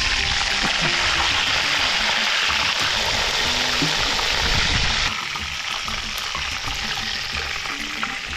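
Whole tilapia sizzling as it deep-fries in hot oil in a metal wok, a steady hiss that drops to a quieter level about five seconds in.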